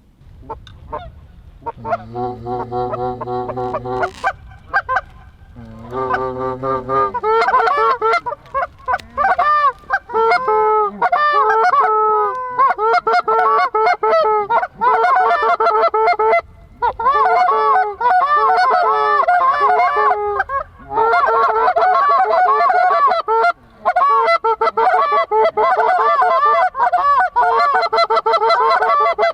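Canada geese honking: a few calls about two seconds in, then from about seven seconds on a dense chorus of many overlapping honks.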